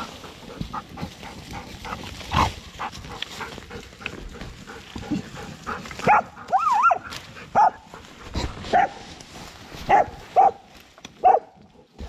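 Dogs scrabbling in dirt and dry leaves at a badger's hole, then from about halfway a run of short, sharp barks with a wavering whine among them.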